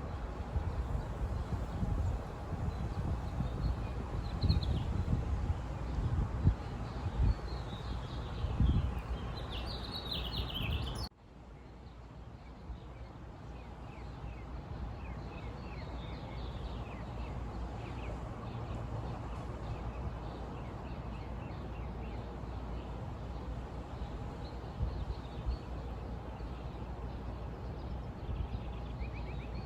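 Birds chirping over an outdoor background. In the first part, uneven low rumbling knocks sound along with it. About eleven seconds in, this cuts off suddenly to a quieter, steady background, and scattered bird chirps continue there.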